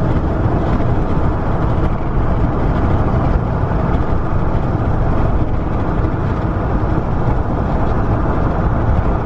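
Steady road and wind noise of a car driving along a road, heard from inside the moving car.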